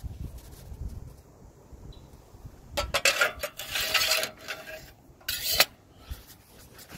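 Perforated stainless-steel ash drawer of a Kamado Joe grill sliding back into its slot under the firebox, metal scraping and clattering on metal for about a second and a half, then a sharp clack as it shuts about five and a half seconds in.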